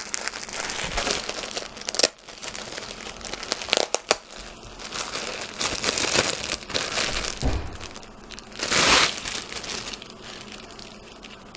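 Clear plastic packaging crinkling and rustling in irregular bursts as it is handled and pulled open, with a few sharp clicks and one louder burst near the end.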